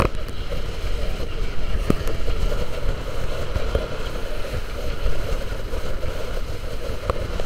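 Strong Force 6 to 7 wind buffeting the microphone over the rush of water past the hull of a sailing yacht under way. Two brief sharp knocks, one about two seconds in and one near the end.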